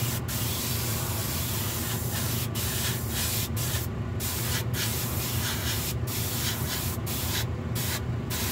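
Small hand-held spray gun hissing as it sprays water-based paint onto a model box car, the hiss cutting out briefly several times as the trigger is let off. A steady low hum runs underneath.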